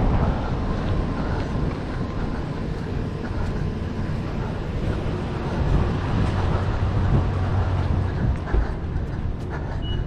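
City traffic: a steady low rumble of passing vehicles, heaviest from about six to nine seconds in.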